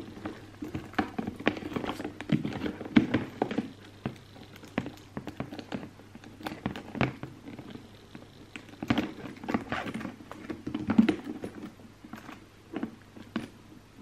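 Hands handling a Ted Baker handbag and its shoulder strap: irregular taps, knocks and rustles, with small clicks as the strap's gold metal clasp is clipped onto the bag.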